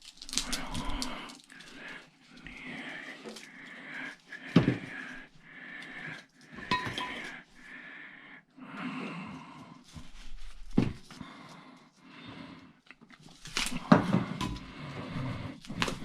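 Irregular scraping and rubbing on metal with several sharp clinks and knocks, from hand work pulling apart the parts of an old 12 V battery charger.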